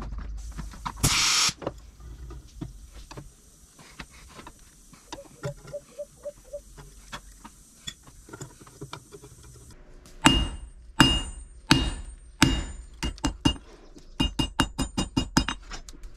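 Scattered metal clinks and knocks as a hot car-spring steel bar is handled in a bench vise. Then, about ten seconds in, a hand hammer strikes hot steel on an anvil, with the anvil ringing on each blow: four heavy blows, then quicker, lighter ones at about four a second.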